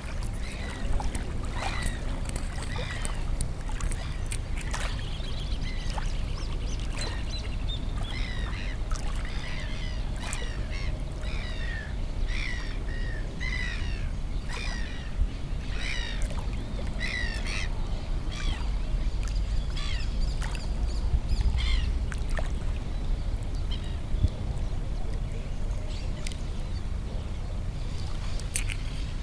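Birds chirping and calling in many short, rapid calls, thickest in the middle, over a steady low wind rumble on the microphone.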